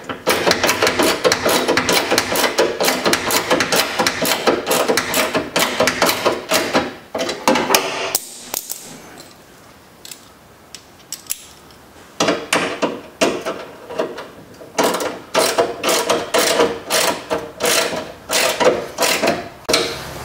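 Hand ratchet with socket extension clicking rapidly in bursts as nuts are tightened, clamping the window glass to the power window regulator. The clicking pauses for a few seconds in the middle, then resumes in shorter runs.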